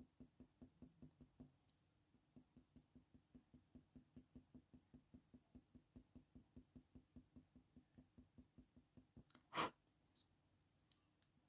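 Coloured pencil scratching on watercolour paper in quick short strokes, about five a second, faint and even, with a brief pause early on. One short louder sound breaks in about nine and a half seconds in.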